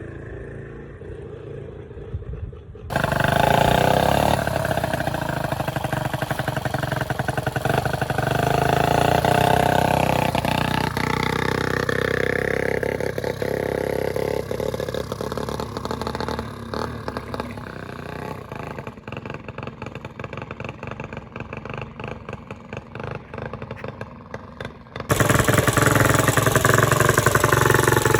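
1965 Honda S65's small single-cylinder four-stroke engine running and being revved, its pitch rising and falling, while being tuned. The sound changes abruptly about three seconds in and again near the end, where it jumps louder.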